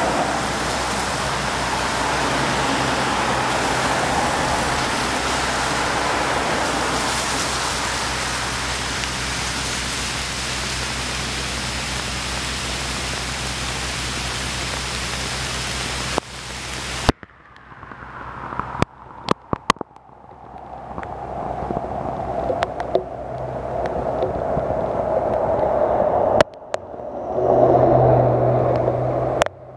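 Steady heavy rain hiss mixed with car tyres swishing along the wet road. About seventeen seconds in it cuts off abruptly to a quieter background with scattered sharp ticks. A car then swishes up on the wet pavement and passes close near the end, its engine hum loudest as it goes by.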